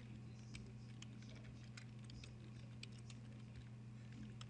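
Faint computer keyboard typing, irregular key clicks as code is entered, over a steady low hum.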